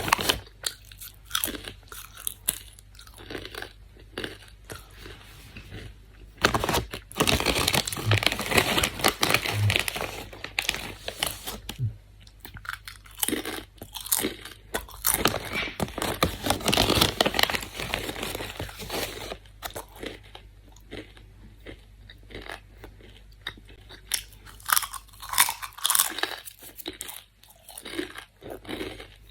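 Doritos tortilla chips being bitten and chewed close up: irregular crisp crunching that comes in runs, densest from about seven to eleven seconds in and again from about fifteen to nineteen seconds in.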